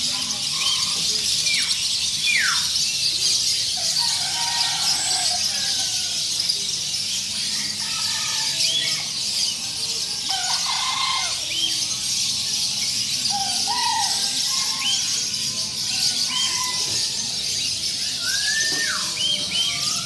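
Many caged songbirds of mixed kinds calling at once: scattered short whistles and quick falling and rising glides, one after another, over a steady high hiss.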